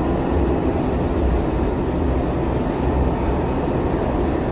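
Steady rumble of a moving subway train heard from inside the carriage: wheels on the track and running gear, even and unbroken.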